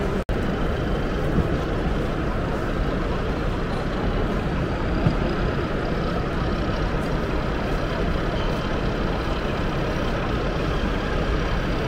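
Steady background din of a busy exhibition hall, a crowd of visitors murmuring, with a momentary dropout just after the start.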